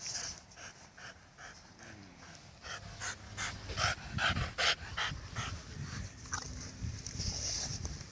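Dog panting in quick, rhythmic breaths, about three a second.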